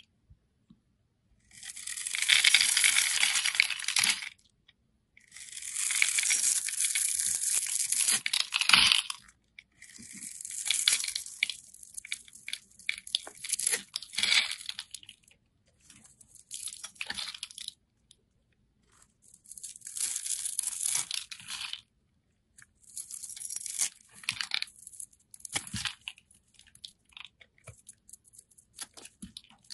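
A bar of soap being shaved and cut with a snap-off utility knife blade: about eight crunchy, crackling scraping strokes, each one to four seconds long, with short silences between them, as crumbly shavings break off.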